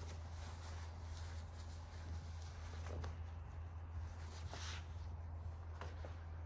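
A steady low hum under faint, soft rustling and brushing of shirt fabric being handled on its hanger.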